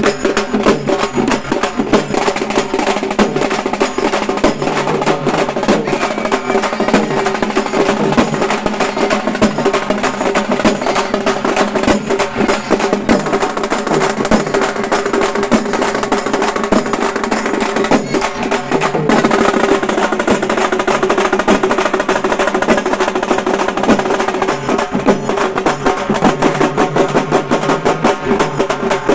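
Halgi frame drums beaten with sticks in a fast, dense, unbroken rhythm, played loud by a drum group.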